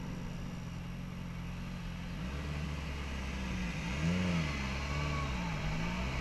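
Motorcycle engine idling, then pulling away about two seconds in, the revs climbing and dropping back several times as it shifts up through the gears, with wind noise building as it gathers speed.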